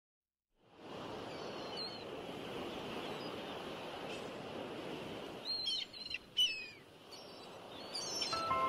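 Outdoor ambience: a steady hiss of open-air noise with small birds chirping, a few calls early on and a busier cluster of chirps in the middle. Music comes in near the end.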